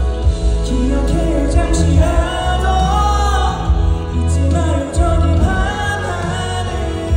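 A song performed live: a male singer's voice over instrumental accompaniment with a steady bass line.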